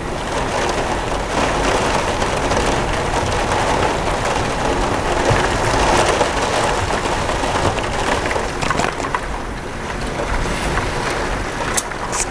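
Steady rush of thunderstorm rain and wind, with a few sharp clicks near the end.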